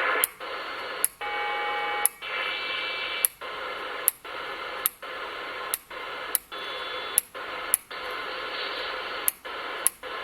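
Uniden President Grant II CB radio hissing with band noise from an empty channel: atmospherics and local interference. About a dozen sharp clicks break it, each briefly cutting the hiss, and a short whistle sounds about a second in.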